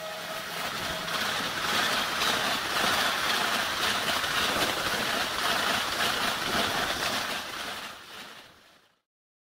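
Rushing noise of a train passing at speed, swelling, holding and then fading away to silence near the end, with the last of a falling horn note dying out in the first second.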